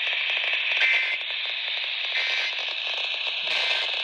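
Three short two-tone warbling data bursts, evenly spaced: the Emergency Alert System end-of-message code, marking the end of the alert. They sound over steady radio hiss and crackle from the open VHF relay channel.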